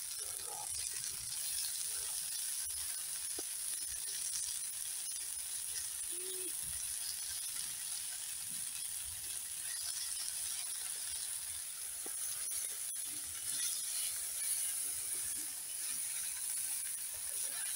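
Steak and potatoes sizzling in a frying pan on a grill over a wood campfire: a steady high hiss with occasional faint clicks and crackles.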